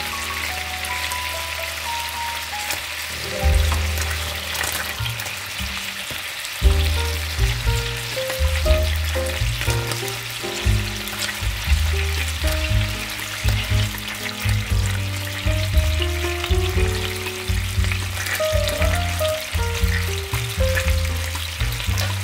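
Chicken breast and vegetable skewers sizzling in hot oil in a frying pan, a steady hiss throughout, with background music and a bass line playing over it.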